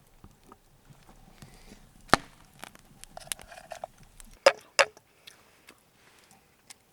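A few sharp knocks and clicks, the loudest about two seconds in and a close pair about four and a half seconds in, with lighter ticks between.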